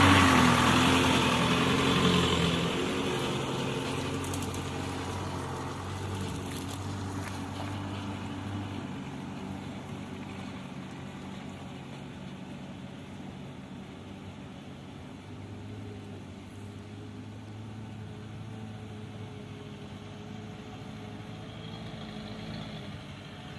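Engine of a heavy construction machine running, loudest at the start and fading over the first ten seconds or so, then running on steadily at a lower level.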